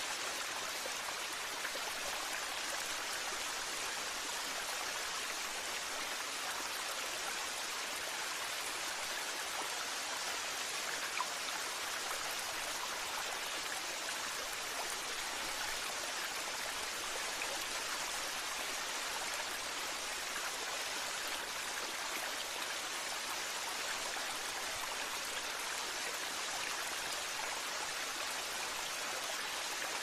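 Steady rush of flowing stream water, an even hiss with no breaks.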